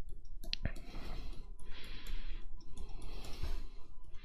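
Stylus strokes on a graphics tablet: a sharp click about half a second in, then three short scratchy brushing sounds as the pen is dragged repeatedly across the tablet surface.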